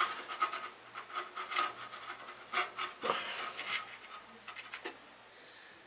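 Water heater anode rod, crusted with corrosion and calcium, scraping and rasping in uneven strokes against the tank's anode port as it is pulled out. The scraping dies away near the end.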